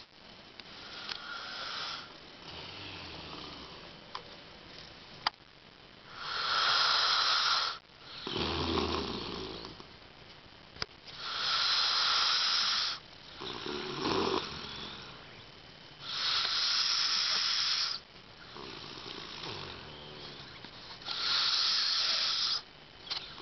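A man snoring loudly in his sleep. About every five seconds comes a loud hissing breath, followed by a lower, rumbling snore, in a regular cycle.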